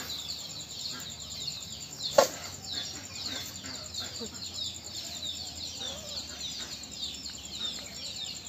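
Birds chirping in quick, repeated falling notes, about three a second, over a steady high whine. One sharp knock about two seconds in.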